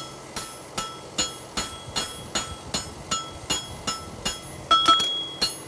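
Farrier's hammer striking a hot steel horseshoe on an anvil while drawing out the toe clip. The blows come in a steady rhythm of about two and a half a second, each ringing. Two louder blows land close together near the end.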